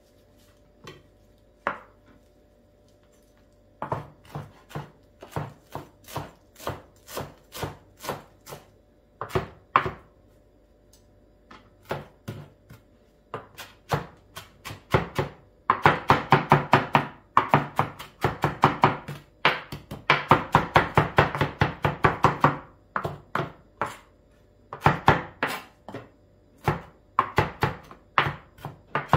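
Chef's knife chopping fresh mint and coriander on a plastic chopping board: a few scattered cuts at first, then long runs of fast, rapid strokes, easing back to shorter runs near the end.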